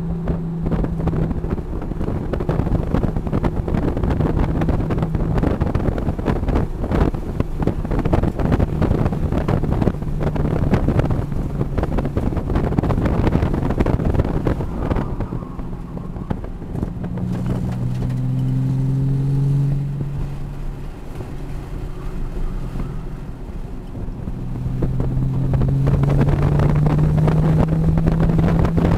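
Nissan 370Z Nismo's 3.7-litre V6 running hard, heard from inside the cabin, with heavy wind buffeting on the microphone. The engine note drops and shifts around the middle as the car slows for a corner, then rises steadily over the last few seconds as it accelerates again.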